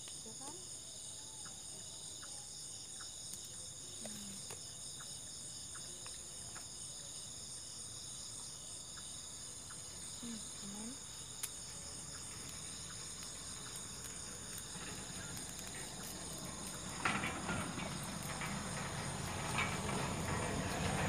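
Night insect chorus: crickets trilling steadily at several high pitches at once. Near the end a broader rushing noise with a few knocks comes in and grows louder.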